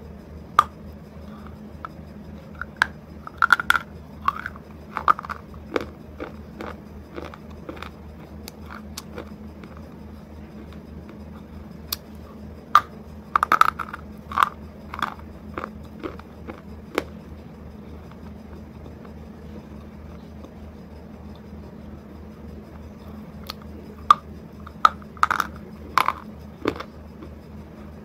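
Close-miked biting and chewing of a hard, brittle white triangular piece: sharp cracks and crunches in clusters, just after the start, around three to five seconds in, around twelve to fifteen seconds, and again near the end, with quieter chewing between, over a steady low hum.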